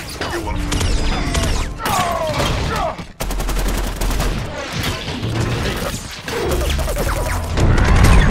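Film sound effects of giant robots' guns firing in rapid volleys, with sweeping, whining glides among the shots. The firing breaks off briefly about three seconds in, then picks up again.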